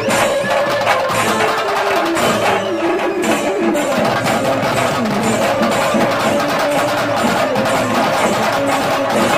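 Chenda drums beaten with sticks in a fast, steady rhythm, with a wavering melody line running over the drumming.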